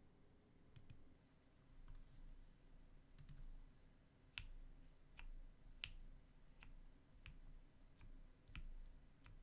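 Mechanical keyboard with lubed Cherry MX Vintage Black linear switches and PBT keycaps, keys pressed one at a time. There are a few faint clicks early, then single keystrokes at a slow, even pace of about one every two-thirds of a second from about halfway in.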